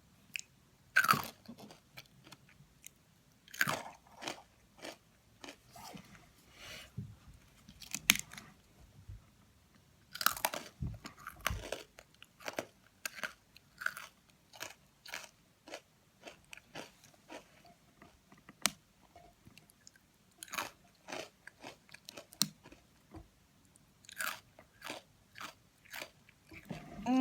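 Close-up crunching and chewing of crisp fortune cookies: sharp bites, loudest about a second in, near 4 s, 8 s and 10 s in, with quieter irregular crunches between.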